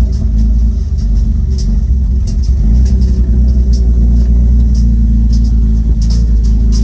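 Straight-piped Nissan Patrol's RB30 straight-six running steadily with a loud, deep exhaust rumble, with scattered light clicks over it.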